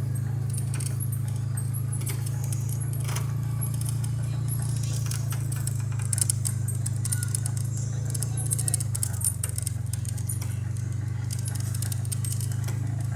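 Steady low hum of a car on the move, heard inside the cabin, that drops slightly in pitch about nine seconds in, with light metallic jingling and clicking scattered over it.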